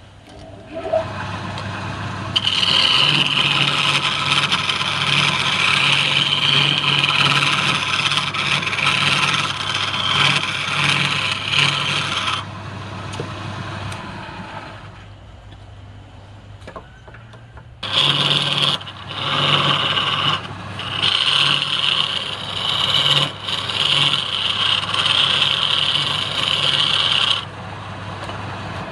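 Wood lathe motor hum with a turning tool cutting into the spinning wood, giving a loud scraping rasp. Two long cuts, the second starting about halfway through, with a quieter stretch between them where only the motor hum is heard.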